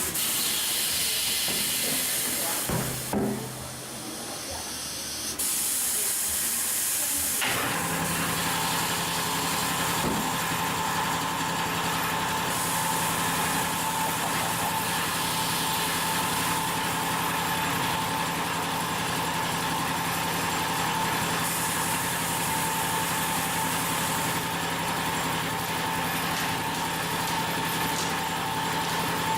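Compressed air hissing out at a tire shop, in two spurts over the first seven seconds. Then a motor starts and runs steadily, with a constant hum and a whine above it.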